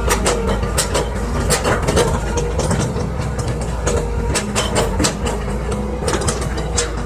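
Excavator's diesel engine running steadily under load, with frequent irregular metallic clanks and knocks from the machine at work.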